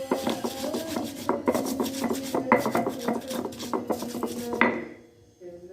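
Dishes and metal utensils clinking and scraping in a rapid series of sharp clicks, dropping away briefly about five seconds in.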